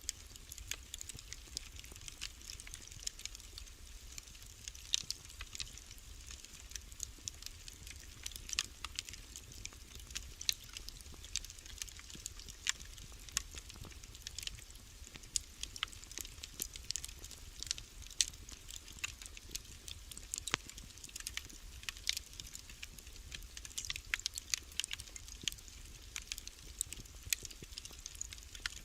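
Wood fire crackling in a fireplace: irregular sharp pops and snaps, several a second, over a low steady rumble.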